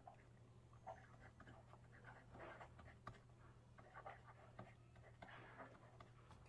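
Faint scratching of a stylus writing on a tablet, in short strokes of a few letters each, over a low steady hum.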